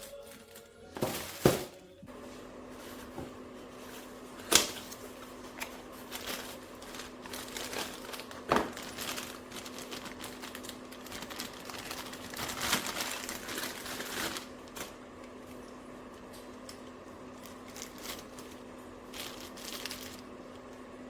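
Packaging being handled, crinkling and tearing, with several sharp knocks, over a steady low hum.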